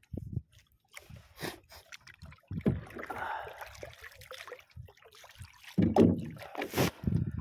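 Water lapping and splashing against the hull and outrigger float of a small outrigger boat, with irregular knocks and a few heavy thumps, loudest near the end.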